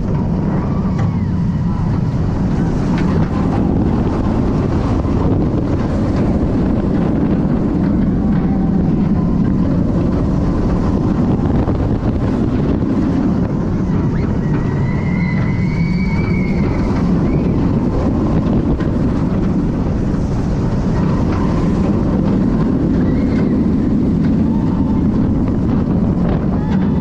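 Steady loud roar of wind buffeting the microphone mixed with the rumble of the Candymonium train running along the track at speed, heard from the front row of the Bolliger & Mabillard hyper coaster.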